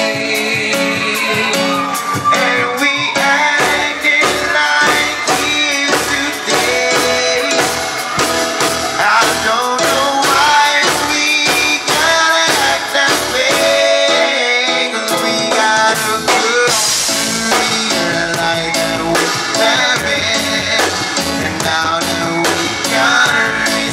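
Live band playing a song with drum kit, keyboard and saxophone, and a vocalist singing. A steady drum beat runs under it, with the bass end coming in strongly about four seconds in.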